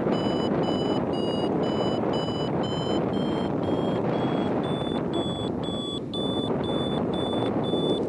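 Paragliding variometer beeping about twice a second, its pitch stepping up a little about halfway through: the climb tone that signals the glider is rising. Under the beeps, a loud steady rush of wind on the microphone in flight.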